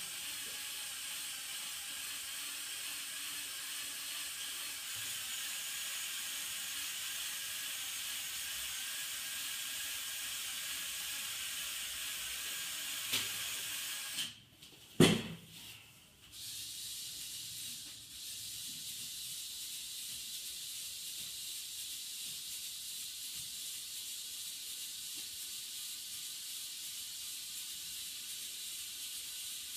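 The electric motors and gearing of a Lego Technic model mobile crane whir steadily as its boom raises and extends. The whir stops about halfway through, followed by a single sharp click, and after that only a faint steady hiss remains.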